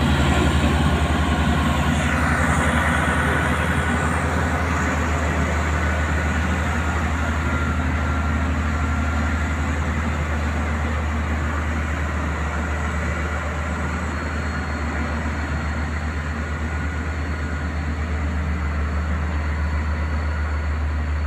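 Heavy truck's diesel engine running under load as it climbs a steep bend and moves away, a steady low drone at an even speed that is loudest in the first few seconds.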